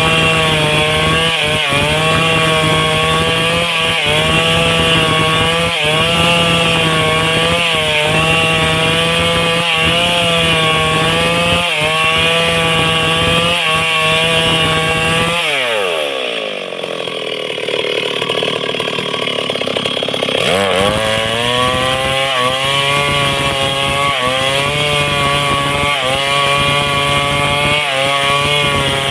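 Stihl MS 382 two-stroke chainsaw ripping lengthwise through a log at full throttle. About halfway through, the revs fall away to idle for some five seconds, then climb back up as the cut goes on.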